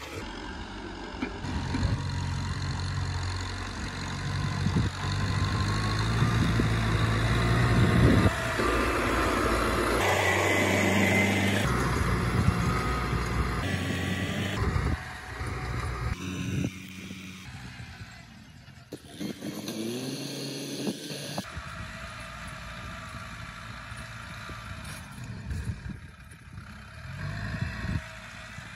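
Kubota tractor's diesel engine working under load as it pulls a disc plough through dry soil, a steady engine hum with a noisy rumble. It is loudest in the first half and drops lower after about fifteen seconds as the tractor moves off.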